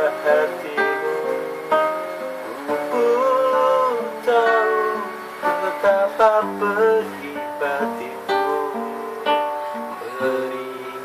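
Acoustic guitar being strummed and picked as accompaniment to a man singing an Indonesian ballad, his voice sliding between held notes.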